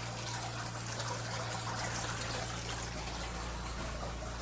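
Steady hissing background noise with a constant low hum underneath.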